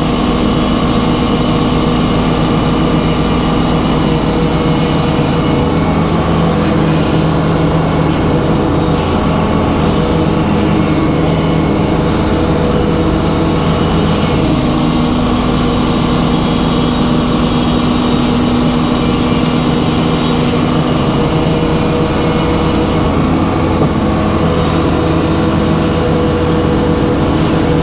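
Circular sawmill running: a steady droning hum from its power unit and spinning blade as it saws through a pin oak log. The sound changes a few times as the cut goes on.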